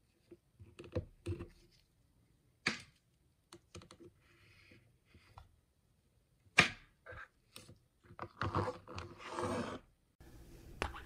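Scattered light clicks and taps of small metal watchmaker's tool parts being handled in a wooden holder, the loudest about two-thirds of the way through, followed by a short rustling scrape near the end.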